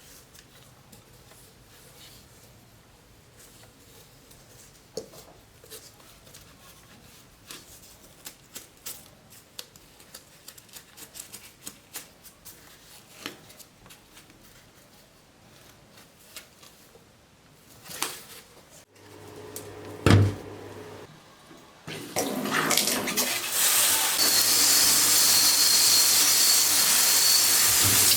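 Light scattered clicks and taps, then a single loud knock about two-thirds in. Shortly after, a loud steady rush of running or spraying water begins over a low motor hum.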